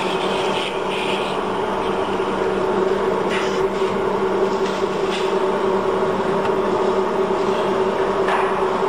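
Steel-wire scourer making machine running: a steady, even motor hum with a few faint clicks.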